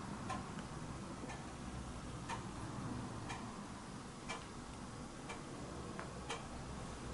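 A clock ticking steadily, one loud tick about every second with fainter ticks between.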